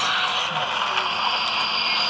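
Sound decoder (ESU LokSound V5) in a Roco HO model of an SNCF X2800 diesel railcar, playing the railcar's diesel engine running through the model's small onboard speaker. A steady high whine comes in about a second and a half in.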